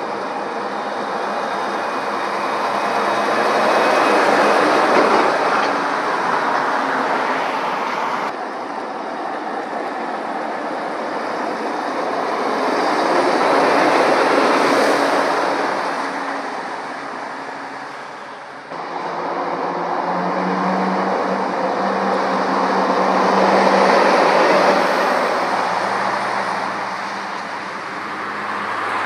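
Heavy lorries passing one at a time on a main road: tyre roar and diesel engine noise swell as each one approaches and fade as it goes by. There are three passes, each broken off abruptly, and the last carries a steady low engine drone.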